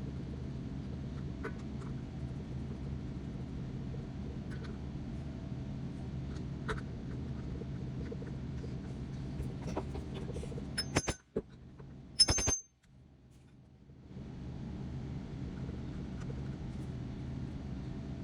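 Steady low hum with a few light clicks. Just past the middle comes a cluster of sharp metallic clinks that ring briefly, like tools or metal parts knocking together, after which the hum drops away for a couple of seconds.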